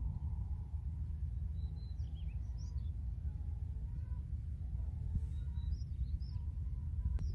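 Steady low wind rumble on the microphone, with faint high bird chirps in two short clusters, about two seconds in and again about five seconds in.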